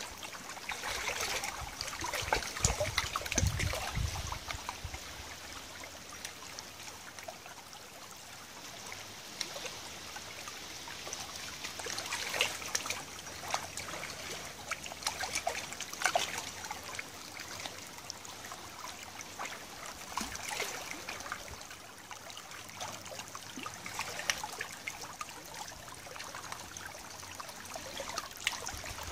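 Shallow tidal river water trickling and lapping at the edge of a mud bank, with many small ticks and pops. A brief low rumble comes about three seconds in.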